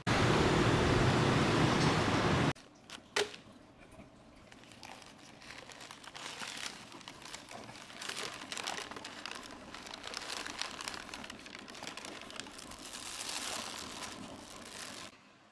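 Printed paper food wrapper and a thin plastic bag crinkling and rustling as a takeaway packet is unwrapped by hand. Before it, about two and a half seconds of loud steady rushing noise cut off suddenly.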